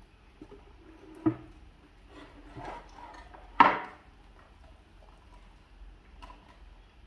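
Small carved wooden stand knocked about and tipped over by two monkeys: a sharp wooden knock about a second in, then a louder knock with a short rattle a little past halfway, amid smaller bumps.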